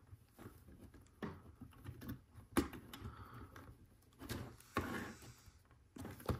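Plastic LEGO Technic pieces clicking and rattling as they are handled and pressed into place on a model, with several short sharp clicks spread through.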